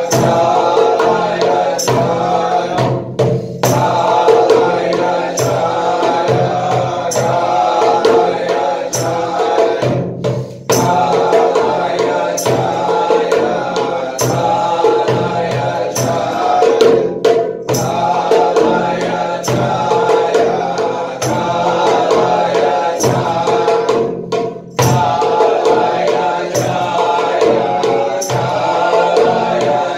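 A mantra chanted over a steady percussion beat. The chant breaks off for a moment about every seven seconds.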